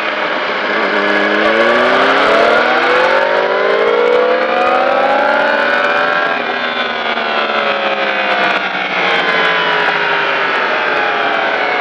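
Sport motorcycle's inline-four engine heard onboard over wind rush. It rises steadily in pitch under acceleration for about five seconds, then falls as the throttle is eased and the bike slows.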